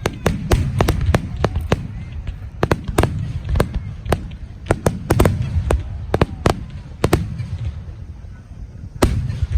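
Aerial fireworks bursting: many sharp cracks and pops in quick, irregular succession over a low rumble of booms. They thin out late on, then a louder burst comes just before the end.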